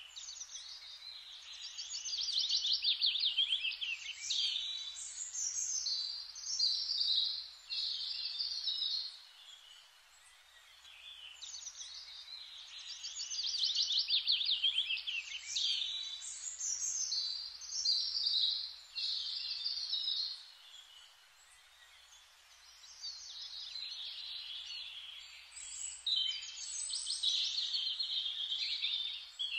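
Bird song: long phrases of rapid, high chirps and trills, with brief lulls about a third and two thirds of the way through.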